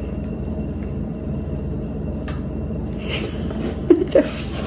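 Steady low room hum and rumble. A single light click comes a little past two seconds in, and faint rustling with a short voice-like whine follows near the end.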